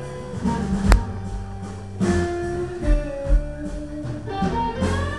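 Live blues band playing through a stage PA, with an amplified guitar carrying held notes over low thumps from the band. A single sharp click about a second in.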